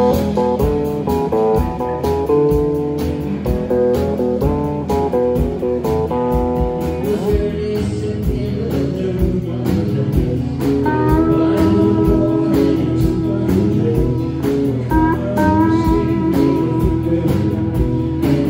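Live rock band playing: electric guitar melody lines over a steady drum-kit beat, with a higher guitar line coming in about halfway through.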